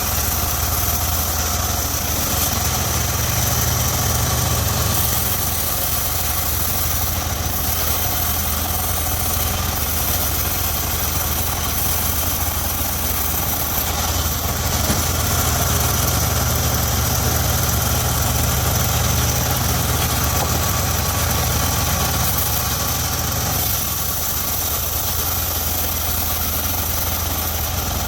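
The engine driving a homemade circular sawmill runs steadily at an even speed, with a constant high whine above its low hum.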